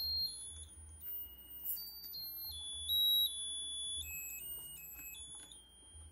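Musical lotus birthday candle's electronic sound chip playing a thin, beeping tune, one plain note after another at changing pitches.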